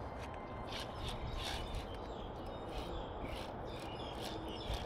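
Faint outdoor ambience: scattered short, high bird chirps every second or so over a low, steady background noise.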